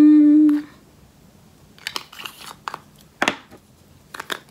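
A woman's brief held vocal sound at the start, the loudest thing here, followed by light clicks and rustles of a small round plastic makeup pot being handled and opened, with one sharp click a little over three seconds in.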